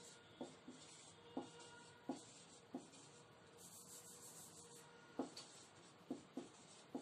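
Marker pen writing on a whiteboard, faint: a series of short strokes and taps of the tip against the board.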